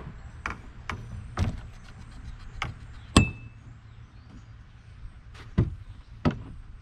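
Irregular knocks and thuds as a small sailboat is worked into its dock slip, gear and hull bumping, about seven in all. The loudest is a sharp clank about three seconds in that rings briefly. A low steady hum runs underneath.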